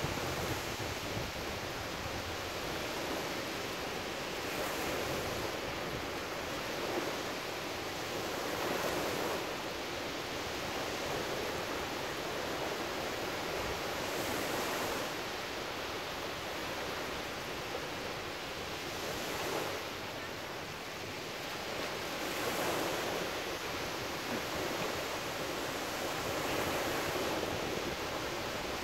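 Ocean surf: small waves breaking and washing up on a sandy shore, the wash swelling every few seconds.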